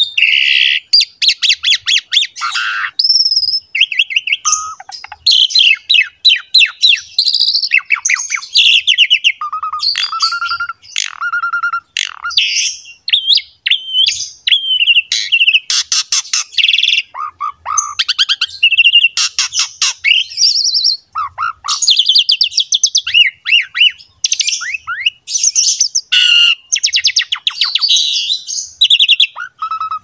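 Asian pied starling (jalak suren) singing a long, unbroken song: a fast mix of chattering clicks, whistled glides and harsh rasping notes, one phrase running straight into the next.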